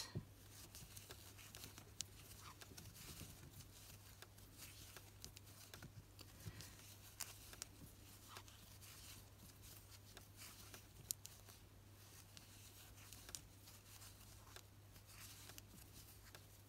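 Near silence: faint rustles and light ticks of hands working a crochet hook through acrylic-looking yarn, over a low steady hum.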